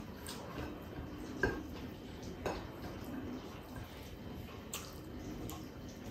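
Close sounds of a person eating by hand: soft chewing and mouth sounds, with a few light clicks of fingers and food against a plate, the sharpest about one and a half seconds in.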